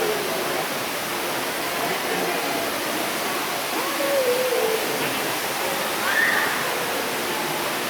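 Ruby Falls, an underground cave waterfall, pouring as a steady, even rush of water, with faint voices over it partway through.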